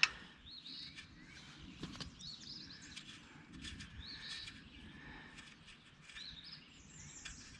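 Background birdsong: several birds chirping in short, repeated rising and falling calls. A few faint clicks of a wrench on a bolt nut come through now and then.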